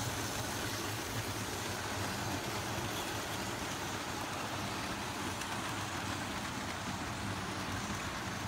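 Steady running noise of four Hornby model Flying Scotsman locomotives' small electric motors and their wheels on the track, with a faint steady hum under an even whirr.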